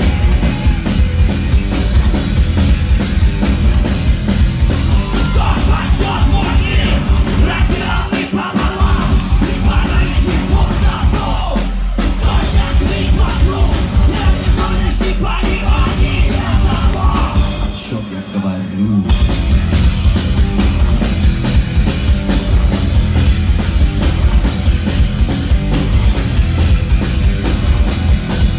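A rock band playing live and loud, with a driving drum kit and yelled vocals. About two-thirds of the way through, the band drops away for about a second, then comes back in full.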